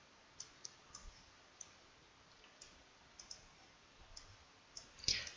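Computer mouse clicking: a dozen or so short, light clicks at irregular intervals, with a louder short noise just before the end.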